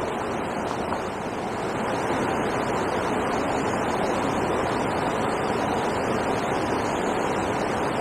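Steady rushing of water pouring over a river weir.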